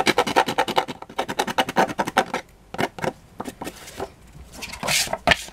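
Small emery-board nail file rubbed in rapid back-and-forth strokes along the edge of paper on a CD, smoothing it. The strokes thin out after about two and a half seconds, and a single louder brushing sound comes near the end.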